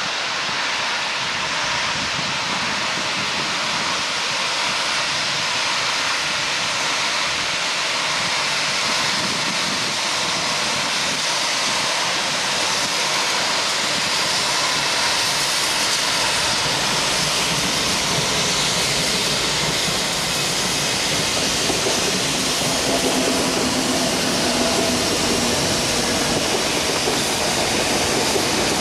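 SNCF 141 R Mikado (2-8-2) steam locomotive working slowly toward the listener with its train, a steady loud hiss of steam, the white steam at cylinder level pointing to open cylinder drain cocks. The sound grows gradually louder as it nears, and faint steady tones join it about two-thirds of the way through.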